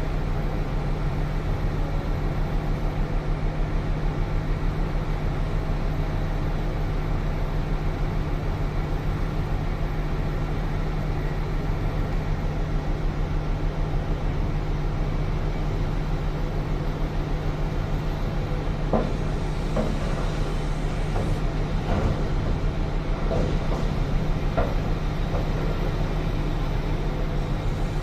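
Large diesel mining machinery running steadily with a deep, even drone as a Cat 6020 excavator loads a Cat 777 haul truck. About two-thirds of the way in comes a string of short knocks and clatters.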